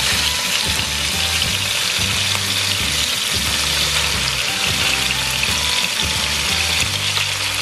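Wet, freshly boiled pasta sizzling in a hot pan of rendered pancetta fat, a steady dense hiss as it is spooned in.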